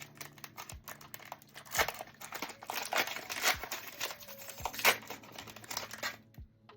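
Foil Pokémon booster pack wrapper crinkling and tearing open, a run of sharp crackles that dies away about six seconds in.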